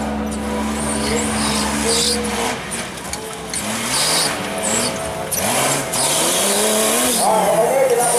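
Off-road vehicle engines revving up and down over and over, in short rising and falling swells, with hissing bursts in between. A steady droning tone underneath stops about two seconds in.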